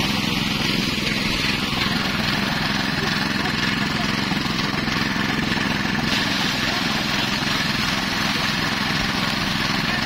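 Small engine running steadily, driving a portable rice thresher while bundles of rice stalks are fed into its spinning drum.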